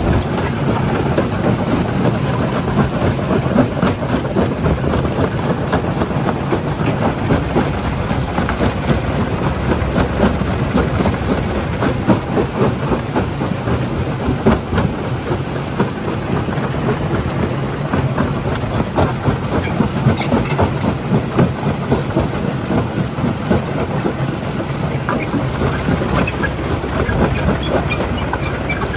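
Primary jaw crusher breaking rock: a continuous dense clatter of stones knocking and grinding, over the steady hum of the running machinery.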